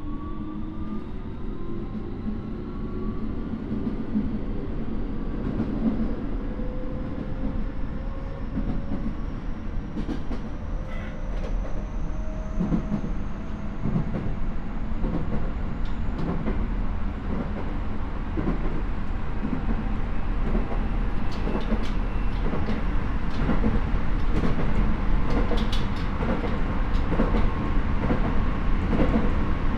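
Keio 9000-series train (car 9030) accelerating, heard from inside the car: the Hitachi IGBT VVVF inverter and traction-motor whine rises steadily in pitch over the rumble of the wheels on the rails. Clicks from the wheels over the track join the rumble in the second half as speed builds.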